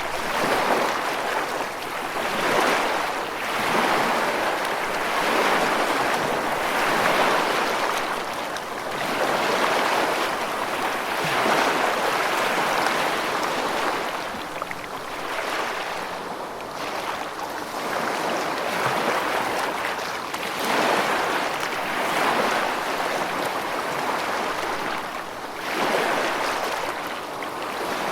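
Calm ocean waves: a steady rush of surf that swells and eases every couple of seconds.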